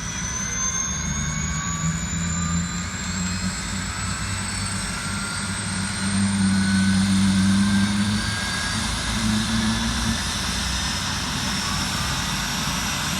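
Turbine helicopter running close by: a high turbine whine rising slowly in pitch throughout, over a steady low hum from the engine and rotor. It is loudest about six to eight seconds in.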